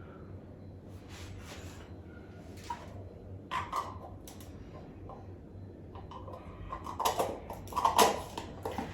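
Soft rustling and handling noises, a few brief scrapes and taps, over a low steady hum, busier near the end.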